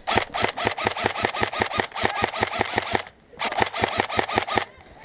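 M4-style airsoft electric gun firing a rapid, steady string of shots for about three seconds, then, after a short pause, a second burst of about a second.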